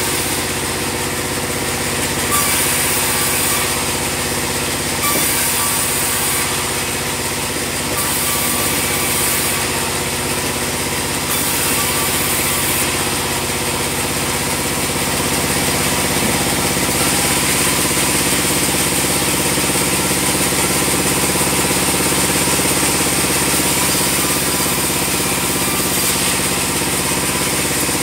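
Sawmill bandsaw machinery running steadily: a loud, continuous engine-like drone with a constant hum.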